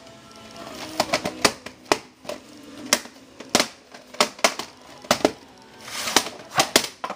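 VHS tapes and their hard plastic cases being handled: an irregular run of sharp clacks and clicks, about a dozen or more.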